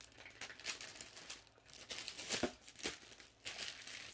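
Clear plastic bag crinkling as it is handled, in short, faint, intermittent rustles.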